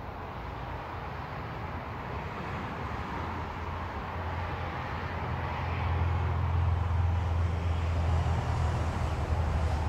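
A motor vehicle's engine running with a steady low hum, getting louder about halfway through, over a faint hiss of traffic.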